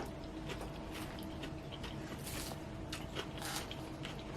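A person chewing a mouthful of salad close to the microphone: a run of small, irregular wet clicks and crunches.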